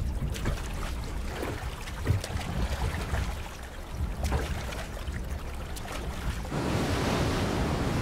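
Choppy sea water slapping and splashing around a small rowboat, with wind rumbling on the microphone. About six and a half seconds in, it gives way suddenly to the louder, steady rush of heavy surf breaking on rocks.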